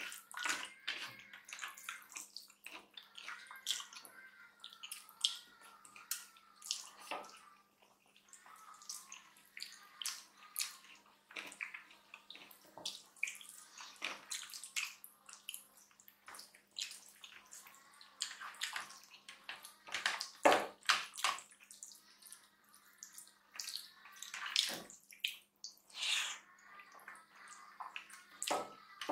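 Wet, irregular squelching and smacking of eating by hand: fingers squeezing and mixing rice with dal and curry on the plates, with chewing and lip smacks.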